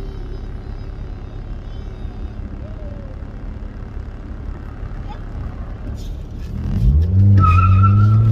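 Car engine running steadily, then revving up hard about seven seconds in and holding at high revs. A brief high squeal sounds over the revving near the end.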